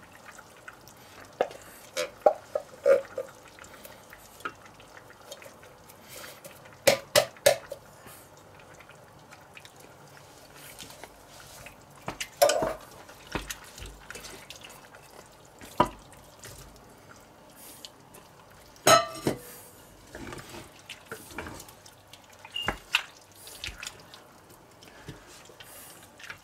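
A wooden spoon stirring wet, chunky food in a stainless steel pot, with scattered knocks and clinks against the pot's side every few seconds, some of them briefly ringing.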